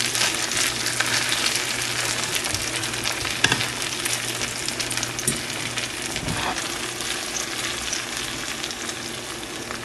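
Grated-potato and egg omelette mixture sizzling and crackling as it fries in hot coconut oil in a nonstick frying pan over medium heat. A fork scrapes and taps against the pan a few times as it spreads the mixture.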